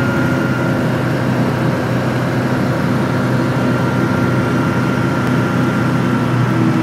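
Ultralight aeroplane's engine and propeller droning steadily in cruise, heard from inside the cockpit: a strong hum with a faint high whine that sinks slightly in pitch.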